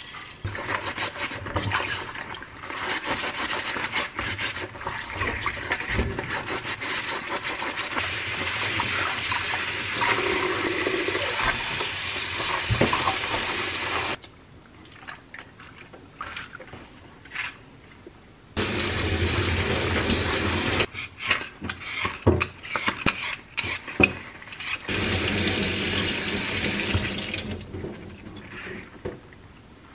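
Kitchen tap water running into a stainless-steel sink and over vegetables being washed in a bowl, turned on and off several times. During the pauses there are a few sharp knocks.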